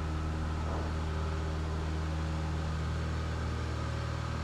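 Cessna 172 Skyhawk's piston engine and propeller running at full power during the takeoff roll, a steady drone.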